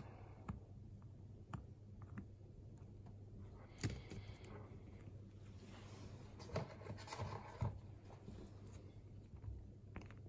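Faint rubbing and scraping with scattered small clicks over a low steady hum: tools and parts being handled at a soldering bench, with a longer stretch of scraping about two-thirds of the way through.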